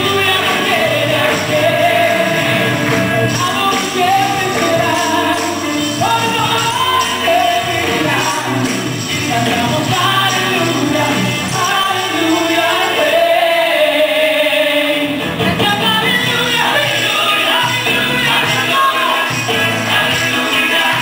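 Live worship music: a group singing a hymn with accompaniment, and hand tambourines shaken and struck along with it.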